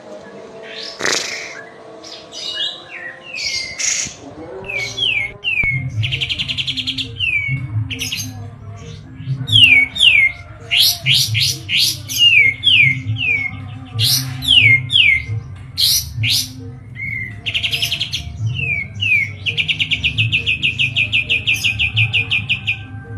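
A kapas tembak songbird singing a loud, varied song: a run of quick downward-sweeping whistled notes, broken twice by a fast rattling trill. A steady low hum runs underneath.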